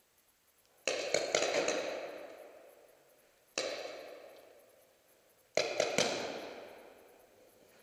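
Paintball marker shots ringing through a large hall, each burst trailing a long echo of about two seconds: a quick volley of about four shots about a second in, a single shot near the middle, and three quick shots about two-thirds of the way through.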